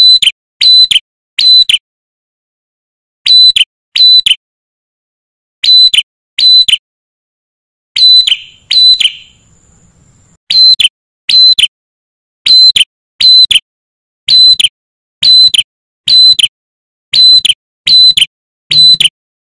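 Tailorbird (prenjak kepala merah) calling: loud, piercing, short notes repeated over and over, in pairs at first, then a rougher falling call about eight seconds in, followed by a steady run of single notes about one a second.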